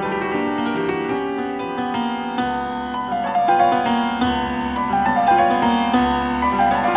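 Grand piano played solo in a piano étude: a fast, dense passage of many quickly changing notes, growing louder about three seconds in.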